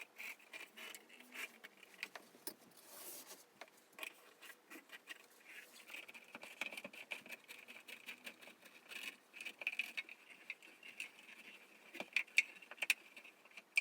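Scattered small clicks, taps and scrapes of lamp parts being handled and fitted together while a floor lamp is assembled, with a short rustling burst about three seconds in.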